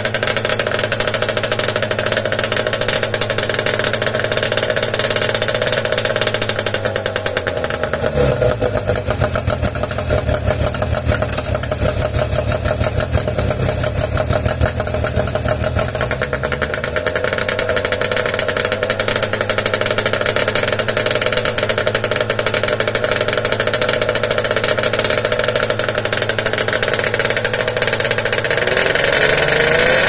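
Outboard motor running out of the water on garden-hose flushing water, its propeller spinning in a guard ring and its exhaust spraying water from the hub. The engine slows about eight seconds in, picks up again around seventeen seconds, and revs higher near the end.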